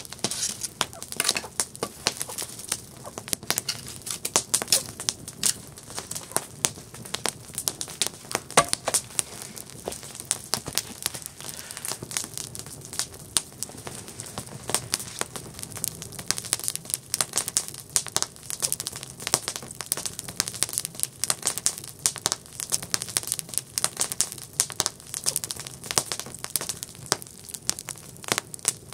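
Campfire crackling steadily, with many irregular sharp pops and snaps of burning wood over a low hiss of flames.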